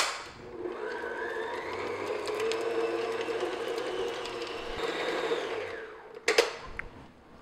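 Electric stand mixer with a paddle attachment beating softened butter in a steel bowl: the motor whine rises as it comes up to speed, runs steadily, then winds down and stops about six seconds in, followed by a sharp click as it is switched off.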